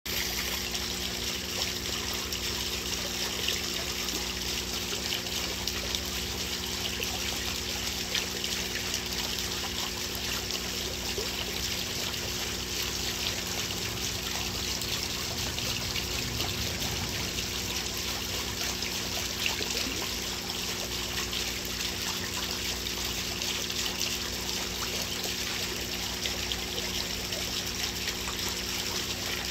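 Water trickling steadily into a koi pond, with a faint low steady hum underneath.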